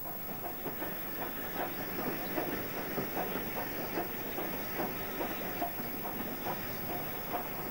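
Wheels of a moving passenger train clicking and clattering irregularly over the rail joints, over a steady hiss, heard from a carriage window.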